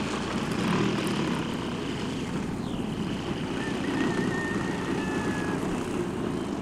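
Radio-controlled aerobatic model airplane flying, its engine and propeller giving a steady drone that swells and fades a little as it manoeuvres.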